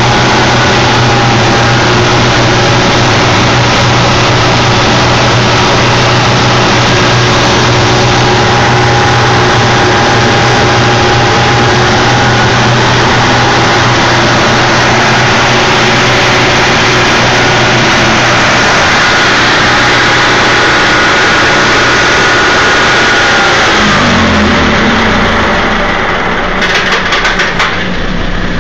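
Kohler generator set's engine running at a steady speed, a loud, even drone that drops a little in level near the end.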